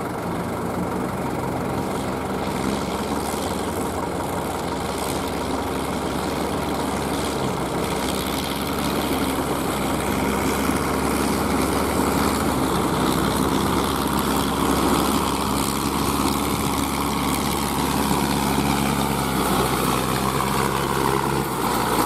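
Kubota ZL3001 tractor's four-cylinder diesel engine running steadily at working speed while it drives a straw baler, with a continuous mechanical clatter over the engine note.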